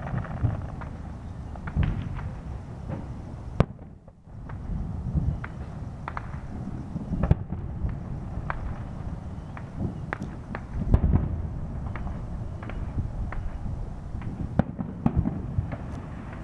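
Aerial fireworks shells bursting, an irregular string of bangs and sharp pops over a low rumble. The loudest bangs come a few seconds in and again about two-thirds of the way through.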